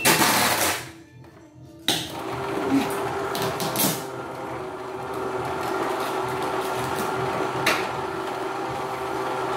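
Portable embroidery machine starting up: a loud brief rattle at the start, then from about two seconds in the motor and stitching mechanism run steadily with a constant hum and occasional clicks. This is a test run after repairing the presser-foot sensor and a heavy, stiff-turning mechanism.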